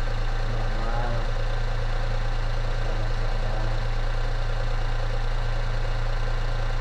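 Daihatsu Xenia 1000's 1.0-litre three-cylinder petrol engine idling steadily, test-run after its throttle body and idle speed control valve were cleaned.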